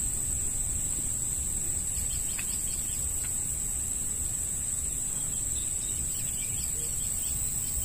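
Insects chirring in one steady, unbroken high-pitched drone, over a low rumble.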